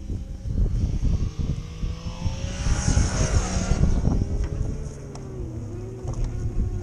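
A motorcycle passing on the track: its engine swells to a peak about three seconds in and then fades, over a steady engine drone. Wind buffets the microphone throughout.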